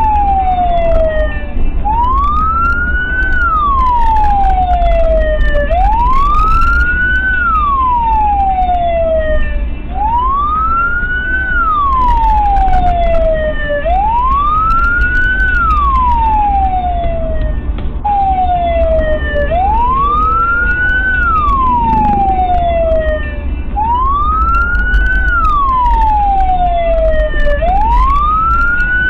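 Emergency vehicle siren wailing in a slow repeating cycle, each sweep rising quickly and then falling slowly, about one every four seconds. Under it runs a steady low rumble of engine and road noise.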